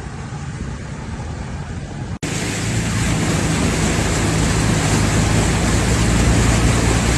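Steady rushing noise of heavy rain and flash-flood water. It jumps louder at a cut about two seconds in, after which a low vehicle engine hum runs under it.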